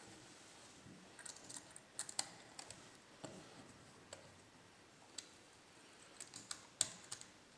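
Faint, irregular small clicks and light taps from a laptop's copper heatsink and fan assembly being handled and seated on the motherboard, with a small screwdriver working at its screws. The sharpest clicks come about two seconds in and near the end.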